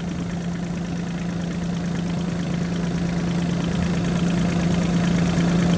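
Kubota diesel engine of a Bobcat E26 mini excavator idling steadily, growing slightly louder. It runs clean, with no blow-by.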